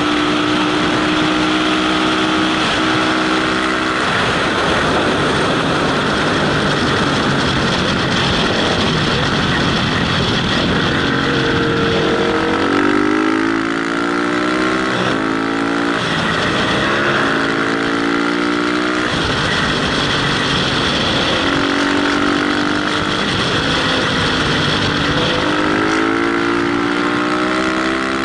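Motorcycle engine under heavy wind rush on a helmet-mounted microphone. It runs steadily at first, then from about halfway in it revs up and drops back several times as it accelerates through the gears.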